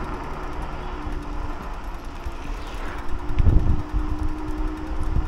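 Wind rushing over the microphone of a Teverun Blade GT II electric scooter being ridden, with a steady hum under it. A louder gust or bump comes about three and a half seconds in.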